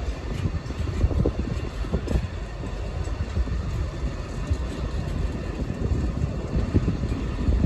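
Train passing on the main line: a steady low rumble with irregular knocks.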